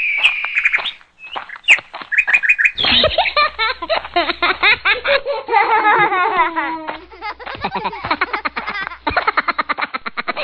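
Birds chirping for the first two or three seconds, then a run of overlapping laughter and high, lively voices of children.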